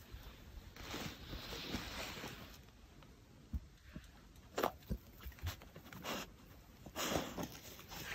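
Faint rustling and a few soft clicks and knocks as a golden retriever takes a plush toy in its mouth.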